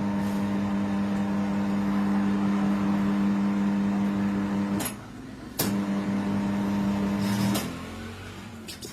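Tyre changer's electric turntable motor running with a steady hum while the pedal is held, turning the scooter wheel to lever the tyre bead off the rim. It cuts off with a click about five seconds in, starts again with a click a moment later, and stops for good near the end.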